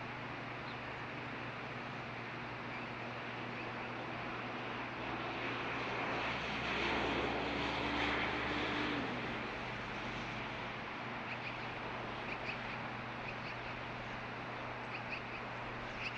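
A bus passing on the road, its engine and tyre noise swelling to a peak and fading away over a steady background rumble. Faint, short osprey chirps come in the second half.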